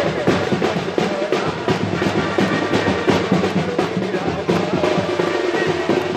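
Music led by busy, rapid drumming with rolls, the strikes coming thick and even throughout.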